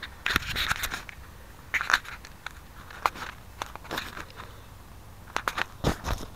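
Crackling, rustling handling noise on the quadcopter's onboard camera microphone as the quad is picked up, carried and turned over in the hand, with its motors off. The sound comes as irregular bursts of clicks and rubbing.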